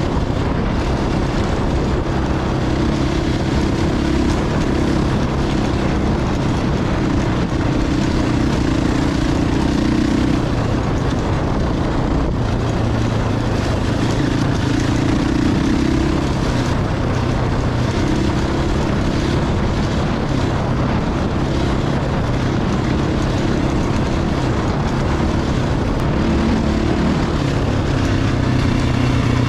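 Enduro dirt bike's single-cylinder four-stroke engine running continuously while riding, its note shifting up and down several times.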